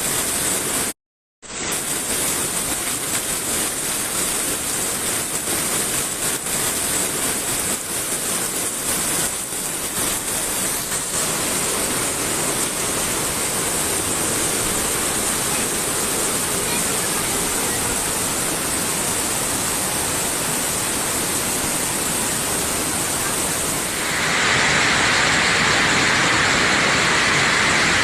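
Flash floodwater rushing, a steady noisy roar. It cuts out for a moment about a second in, and near the end grows louder and brighter.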